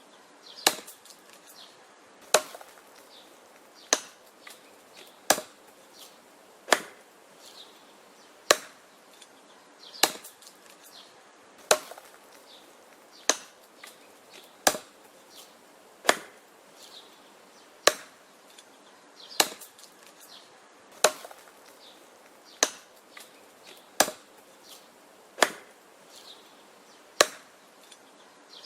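Wood being chopped: a steady run of sharp chops, about one every one and a half seconds, with fainter knocks and cracks in between.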